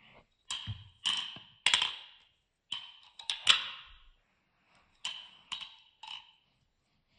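Balisong (butterfly knife) being flipped by hand, its handles and blade clacking together in quick metallic clicks with a short ring after each, about nine in three clusters.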